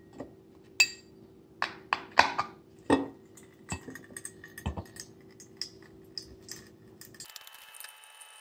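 A run of sharp clinks and knocks as the Toddy cold brew container is handled on its glass carafe, hard plastic striking glass, loudest over the first three seconds, then lighter ticks.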